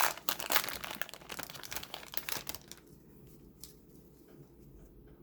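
Hockey card pack wrapper crinkling as it is handled and torn open, for about two and a half seconds, followed by a few faint clicks of cards being handled.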